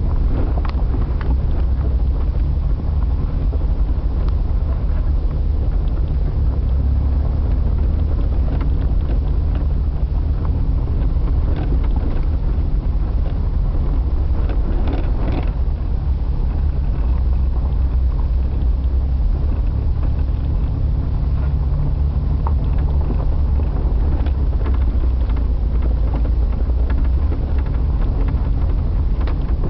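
Jeep engine and drivetrain running steadily at low trail speed, heard from inside the vehicle, with wind noise on the microphone and a few short rattles and knocks, the loudest around the middle.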